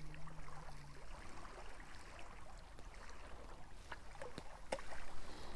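Faint lakeside background with light water movement and scattered small clicks from hands working a fishing hook and worms. A short low hum rises and holds for about a second at the start.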